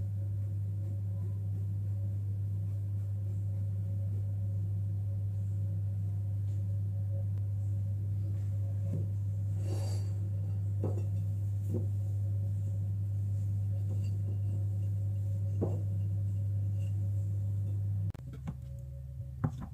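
A steady low hum, with a few faint knocks and scrapes as a sponge cake is cut with a knife and its trimmed edges are crumbled by hand onto a china plate. The hum cuts off suddenly near the end.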